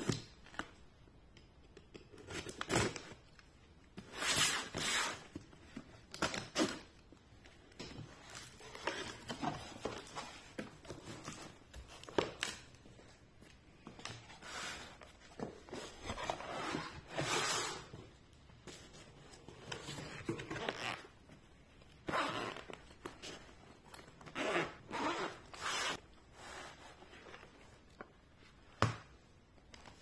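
Unboxing sounds: a utility knife cutting packing tape on a cardboard box, cardboard flaps and packaging being handled, and later a zipper on a fabric carrying case pulled open and paper rustling. It comes as a series of separate short scrapes, rips and knocks.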